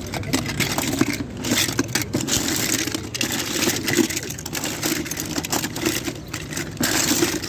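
Hands rummaging through small die-cast toy cars, which clatter and scrape against each other in a dense, steady jumble of clicks.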